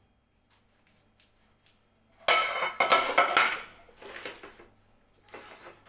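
Metal loaf pan and serving plate clattering against each other and the stone countertop as the pan is turned over onto the plate: a loud clatter about two seconds in, then two lighter knocks as the upturned pan is settled.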